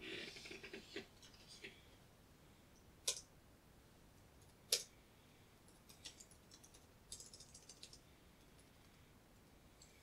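Faint computer keyboard typing: two single key clicks about a second and a half apart, then a quick run of keystrokes between about six and eight seconds in, as a command is typed into a network switch's console.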